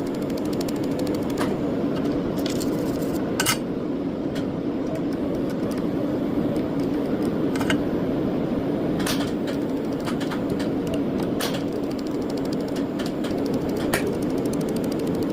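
A small workshop machine running with a steady hum, broken by irregular sharp clicks.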